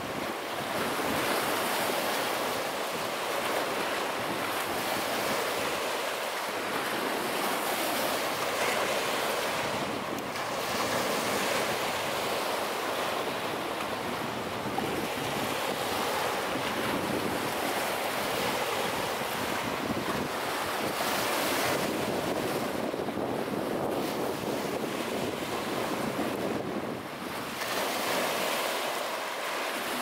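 Small lake waves breaking and washing up a sandy beach: a continuous wash of surf that swells and eases as each wave rolls in.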